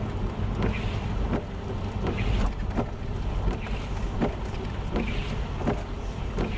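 Car interior noise while driving on a wet road: a steady low engine and road rumble with tyre hiss, and light knocks about every three-quarters of a second.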